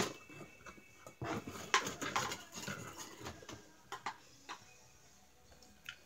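Small plastic rice cooker being handled: a click, then a couple of seconds of clattering and rubbing as its lid and inner pot are moved, followed by a few light knocks.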